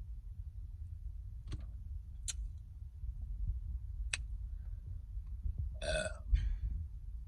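A single pitched burp from a woman, about six seconds in, lasting about half a second with a short tail, over a steady low wind rumble on the microphone. A few faint clicks come earlier.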